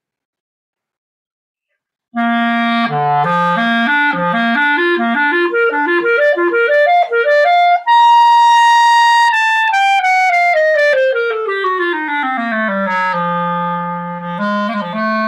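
Buffet Crampon R13 Prestige clarinet played solo: after about two seconds of silence, a passage climbs in steps from the low register to a held high note, then runs smoothly back down to a long low note. A bright-toned horn, which the player finds light in its low end and short of darkness.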